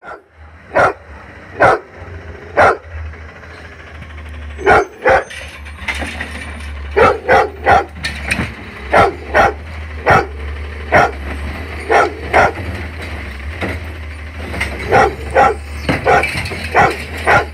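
A dog barking repeatedly in short, sharp barks, often in pairs or threes, over the steady low hum of an Autocar automated side-loader garbage truck's engine running.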